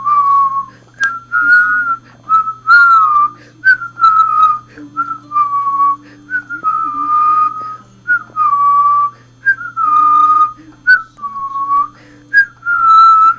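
Puppy whining and crying over and over, high, thin whines about once a second, each wavering and dipping slightly in pitch.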